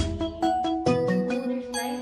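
Background music: a melody of short, distinct pitched notes changing several times a second.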